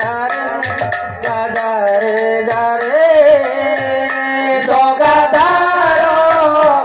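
Sambalpuri kirtan music: a two-headed barrel drum played by hand in quick, even strokes under sustained, sliding melodic notes and singing, which swell louder about three seconds in and again near five seconds.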